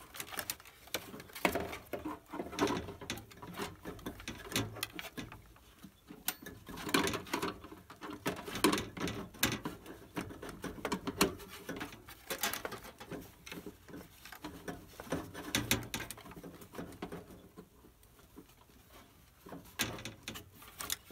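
Irregular clicks, scrapes and light knocks of an RV furnace's blower motor assembly being handled and worked back into its sheet-metal compartment by hand.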